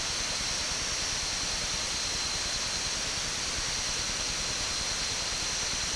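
Waterfall water falling, a steady, even rushing hiss.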